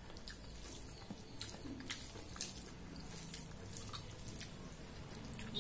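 Fingers mixing rice with dal and greens on a steel plate, making soft, wet, irregular clicks.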